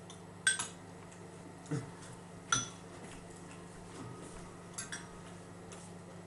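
Metal spoons clinking against cereal bowls during eating of cornflakes: a few sharp, scattered clinks with a brief ring, the loudest about half a second in and again around two and a half seconds in.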